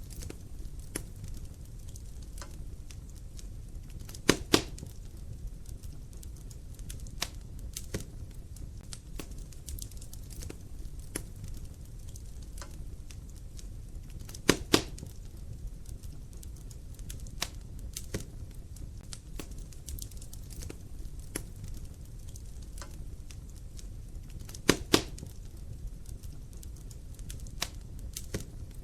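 Wood fire burning in a fireplace: a steady low rumble of flames with scattered small crackles. Three louder double pops come about ten seconds apart.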